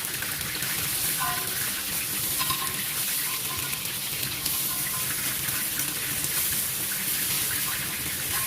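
Chicken adobo sizzling in a pan: a steady hiss.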